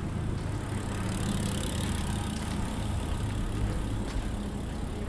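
A motor vehicle engine running with a steady low hum in street noise, and a hiss that swells and fades over the middle seconds.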